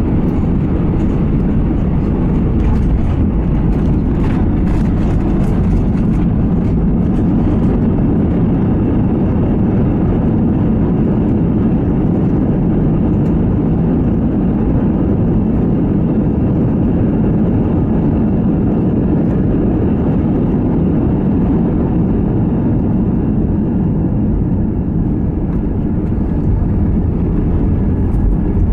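Cabin noise of an Airbus A320 taxiing after landing: a steady low rumble from the engines and the rolling aircraft, with a few faint ticks in the first several seconds.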